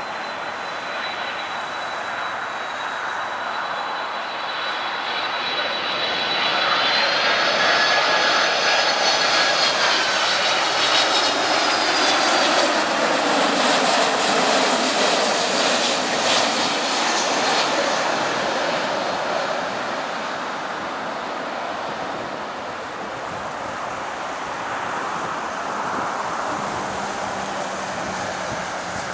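Boeing 767-300ER jet engines on final approach: a steady high fan whine over a deep jet rush. The sound grows loudest as the airliner passes close by, with the whine bending in pitch, then fades as it flies on.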